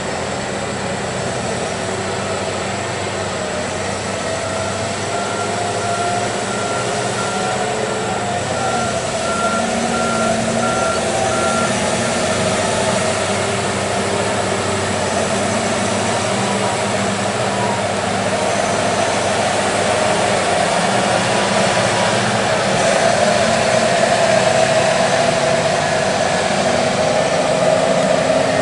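Engines of a Liebherr R 996 mining excavator and a loaded haul truck running steadily, getting a little louder toward the end. A backup alarm sounds a steady series of beeps for several seconds around the middle.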